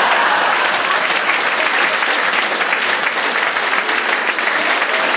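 Audience applauding, a dense, even clapping that holds steady.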